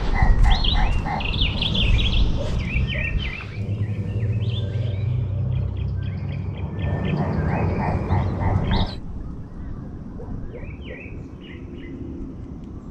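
Knysna turaco (loerie) calling in a rapid, rhythmic series of low notes, at the start and again about seven seconds in, over the higher chirping of smaller birds and a low rumble. About nine seconds in, the sound drops abruptly to just faint bird chirps.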